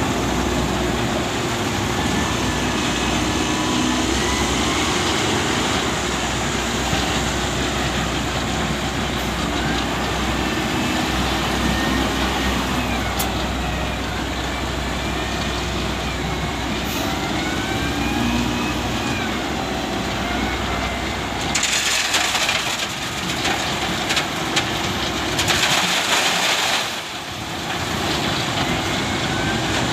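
Heavy diesel earth-moving machinery running steadily as an SDLG machine loads a dump truck, with a low engine hum underneath. Two loud hissing bursts come about two-thirds of the way through and again a few seconds later.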